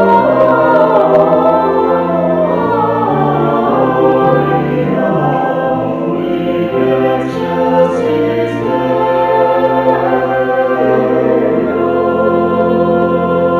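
A choir singing slowly in long, held chords, with a steady low part beneath.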